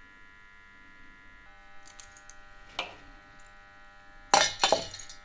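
Handfuls of wet, soaked urad dal landing in a stainless-steel mixer-grinder jar: a couple of light clinks, then a loud clatter of grains and hand against the metal jar about four seconds in, over a faint steady hum.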